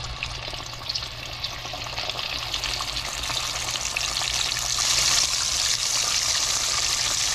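Breaded flounder frying in hot oil: a dense, steady sizzle that builds louder over the first few seconds, then holds.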